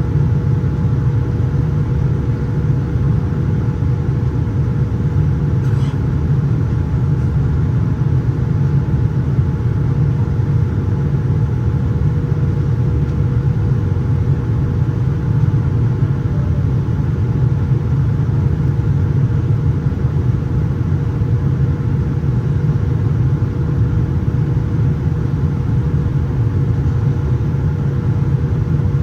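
Steady cabin noise inside a Boeing 787-9 in flight: a constant low rumble of airflow and engines, with a faint steady hum running through it.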